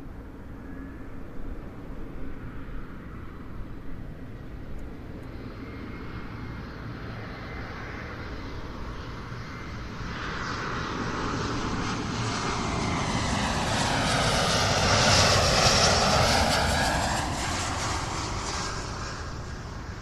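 A jet airliner flying overhead: a distant rumble that builds over several seconds to a loud peak about fifteen seconds in, with a sweeping, shifting roar as it passes, then fades away.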